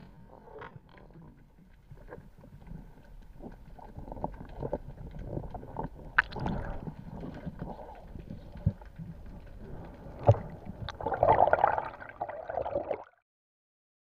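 Underwater sound picked up by a diver's camera: muffled water rumble with scattered clicks and knocks as the diver moves, growing louder near the end before it cuts off suddenly.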